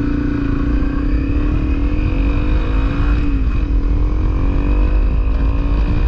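Honda CRF250L single-cylinder four-stroke engine pulling under acceleration. Its note rises, drops with a gear change about three and a half seconds in, then climbs again. Heavy wind rumble on the microphone runs underneath.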